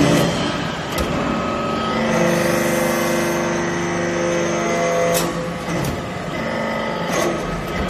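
Hydraulic briquetting press running: its motor and pump hum, settling into a steady, pitched whine for a few seconds from about two seconds in while the ram lifts out of the mould. Sharp metallic clicks from the press come at about one, five and seven seconds.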